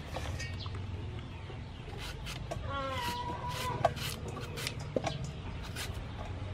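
A julienne peeler rasping strips off a peeled mango in a series of quick strokes starting about two seconds in. A chicken calls once, a single held cry about two and a half seconds in.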